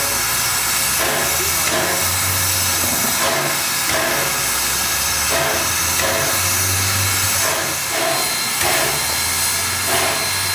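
Steam hissing steadily from Wilmington & Western's 0-6-0 steam locomotive No. 58, escaping around its cylinders and front end, over a low hum that swells and fades. A faint thin high tone joins about two-thirds of the way in.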